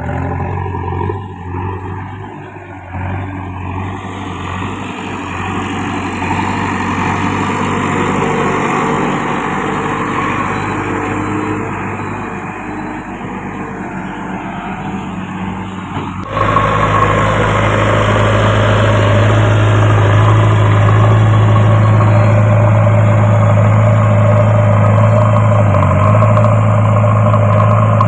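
JCB backhoe loader's diesel engine running steadily while the machine pushes soil with its front loader bucket. About 16 seconds in it becomes suddenly louder and closer, then holds steady.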